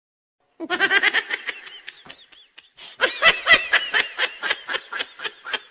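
High-pitched laughing sound effect: a rapid run of short giggles that starts about half a second in, tails off around two seconds, and picks up again densely at about three seconds.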